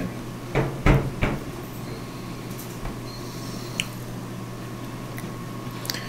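Lower front panel of a Frigidaire washer-dryer combination unit being pushed back into place. It gives three short knocks and clicks in the first second and a half as it seats on its clips, then only a steady low hum remains.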